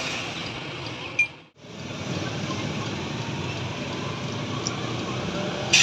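Lathe running steadily, with a constant mechanical noise and low hum. The sound cuts out briefly about a second and a half in, then carries on unchanged.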